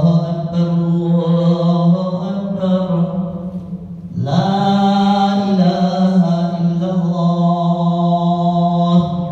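Male voice reciting the Quran aloud in the melodic, drawn-out style of tajweed during congregational prayer. Two long phrases with held notes, the second beginning about four seconds in with a rising pitch.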